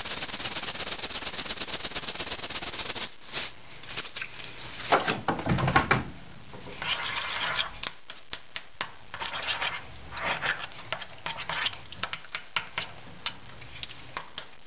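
A metal spoon stirring and scraping a thick tuna and crème fraîche mixture in a ceramic bowl, with irregular clinks against the bowl and a few louder knocks about five seconds in. For the first three seconds there is a steady fast rattle.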